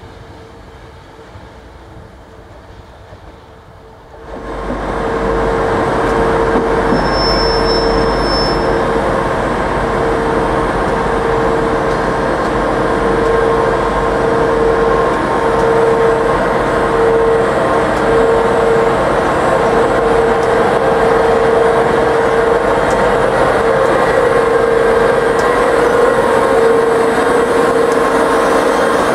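A train of wagons running away into the distance, then, about four seconds in, a British Rail Class 92 electric locomotive passing close with a train of tank wagons: a loud, steady rumble of wheels on rail with a steady hum over it.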